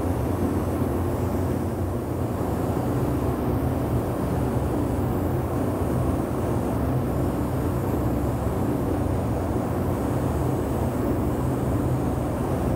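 Steady low rush and hum of a paint spray booth's ventilation fan running, even and unbroken.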